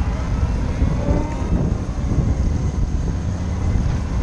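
Wind rumbling over the microphone of a moving Harley-Davidson LiveWire electric motorcycle, with a faint rising whine from its electric drive about a second in.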